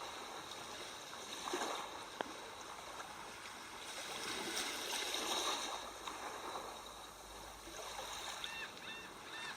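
Steady sea sounds, a wash of waves and water that swells and eases. A few short high chirps come near the end.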